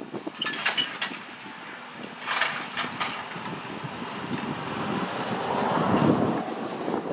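A grapple truck's steel tongs working in a gondola of concrete crossties: a few sharp clanks in the first three seconds, then a rushing swell of noise that peaks about six seconds in, with wind on the microphone.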